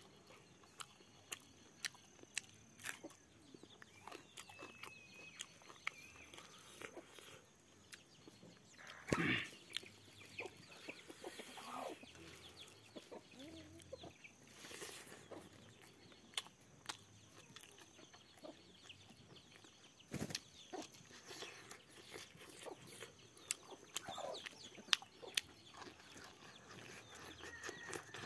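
Close-miked eating by hand: lip smacks, chewing and short mouth clicks as rice and boiled pork are eaten, with chickens clucking in the background.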